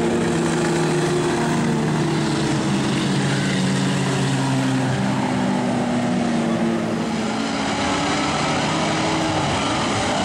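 Several stock car engines racing round a dirt speedway oval, a loud, steady drone of engines whose pitches slide slowly as the cars go past. The sound shifts about seven seconds in.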